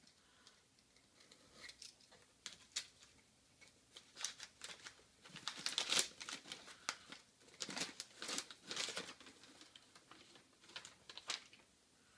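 Newspaper packing crinkling and rustling in irregular handfuls as a drink can is unwrapped from it, sparse at first and busier after a few seconds.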